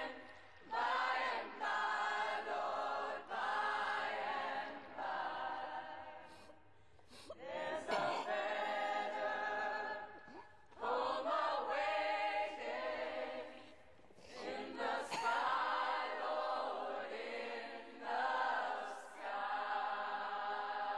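Choir singing a cappella: held phrases a few seconds long, separated by brief pauses.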